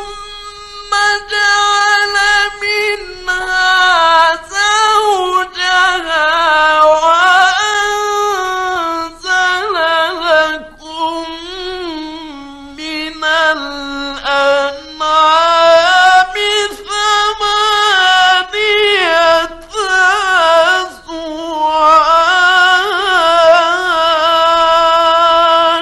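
A male Quran reciter chanting in the melodic mujawwad style, from a 1950s recording. His voice holds long, high notes with ornamented turns, in drawn-out phrases parted by short breaths.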